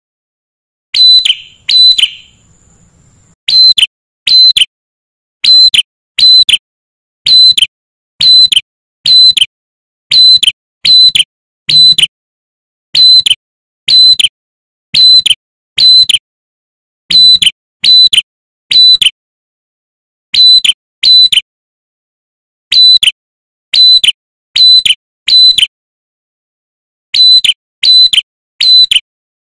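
Male ashy tailorbird singing: loud, sharp, ringing notes repeated in runs of two to four, about one to two notes a second, with short pauses between runs. It is a territorial male's song, used as a lure call to rouse other tailorbirds.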